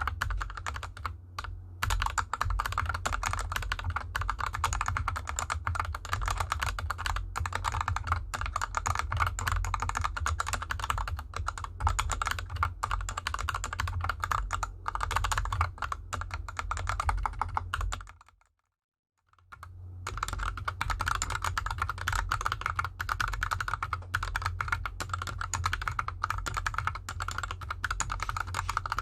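Continuous mechanical-keyboard typing on a GK64X with Krytox 205g0-lubed Gateron Yellow linear switches and DSA keycaps, the keyboard on a desk mat over felt. The typing cuts out briefly about two-thirds through, then resumes with the keyboard on an artificial grass mat.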